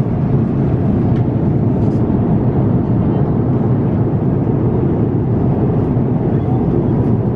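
Steady cabin noise of an Airbus A350-900 in flight: a constant low rushing hum of engines and airflow, unchanging throughout.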